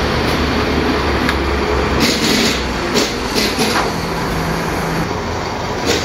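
Steady mechanical workshop hum, with a few short metallic clicks and rattles about two to three and a half seconds in.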